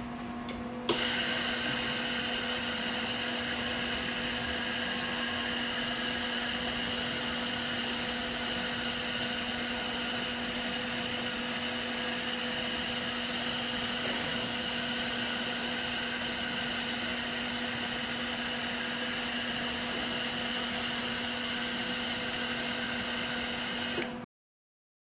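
Jet1000 air-cooled laser welder running a weld on a rotating positioner turntable: a steady high-pitched whine with hiss over a low hum. It starts abruptly about a second in and cuts off suddenly near the end.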